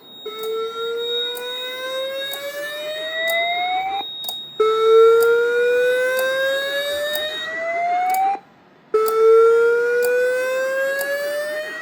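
Fire alarm voice evacuation speaker on a Cerberus Pyrotronics / Siemens MXL-V system sounding a slow whoop alert tone between evacuation messages: three rising sweeps of about four seconds each, separated by short breaks.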